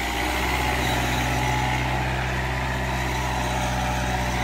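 Kubota MU4501 tractor's four-cylinder diesel engine running steadily under load while pulling a plough through the soil. The driver says this plough loads the tractor more heavily, making the engine pull down.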